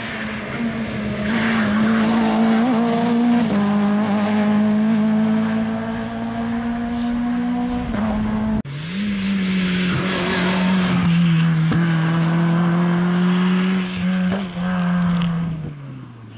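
Rally car engine pulling hard through the gears. The pitch climbs slowly in each gear and drops at each shift, about three and a half seconds in and again, with a brief break, about eight and a half seconds in. Near the end the engine slows, its pitch falling steadily.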